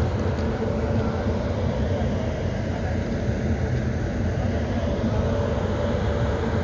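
Stationary electric locomotive humming steadily, with a constant low rumble under two held tones.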